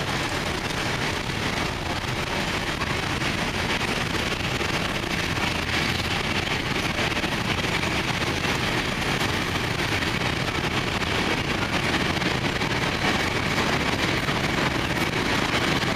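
Freight train of covered sliding-wall wagons rolling past, a steady rumble of wheels on the rails that grows slightly louder near the end.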